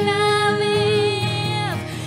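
Live worship song: a woman holds one long sung note over a strummed acoustic guitar, the note sliding down and breaking off near the end.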